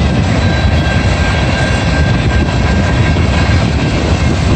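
Freight train of covered hopper cars rolling past, a loud steady rumble of wheels on the rails, with a faint high steady whine partway through.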